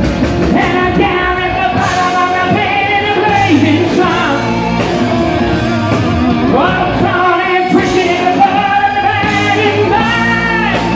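Live rock music played loud: a male lead singer over a band with electric guitar, holding and sliding long notes.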